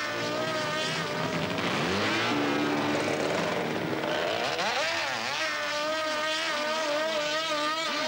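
Racing motorcycle engines revving hard, their pitch dipping and climbing again several times.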